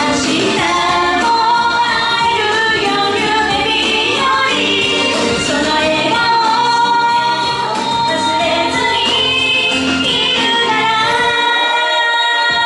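A woman singing a J-pop song live with instrumental accompaniment. The deep bass drops out about eleven and a half seconds in.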